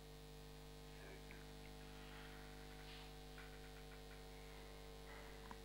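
Near silence: a steady low electrical hum with a few faint, indistinct sounds.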